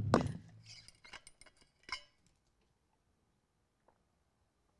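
Knocks and rustle of a handheld microphone being set down while a metal water bottle is picked up, with a light metallic clink about two seconds in. Then near silence.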